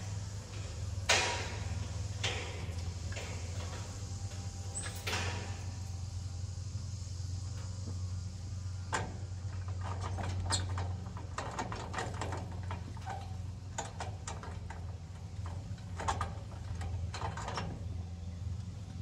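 A steady low hum with scattered short clicks and chirps over it.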